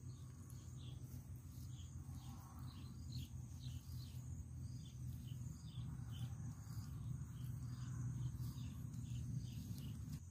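Outdoor ambience: a steady low hum under small, high chirps that repeat about twice a second.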